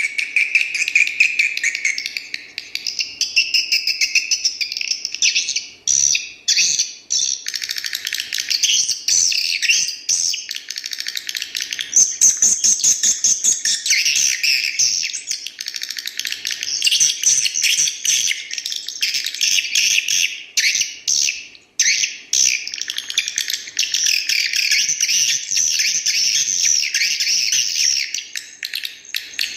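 An edited recording of swiftlet calls played back as a mono "call sound" (suara panggil) track, the kind used to lure swiftlets into a nest house. It is a dense, continuous chorus of high chirps and twitters, with a few brief breaks.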